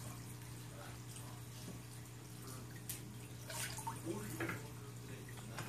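Aquarium filter running with a steady hum and trickling water. A sharp splash comes about three seconds in, and a cluster of louder splashing sounds comes between about three and a half and four and a half seconds in.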